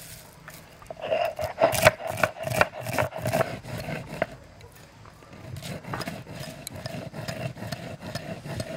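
Sil-batta grinding stone in use: a stone muller is rubbed back and forth over a flat stone slab, grinding washed chickpeas. The gritty scraping strokes come in an irregular run, easing off briefly about halfway through.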